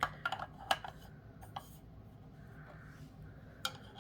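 Small toy game pieces clicking and knocking together as they are handled and fitted: a quick cluster of sharp clicks in the first second and a half, and one more click near the end.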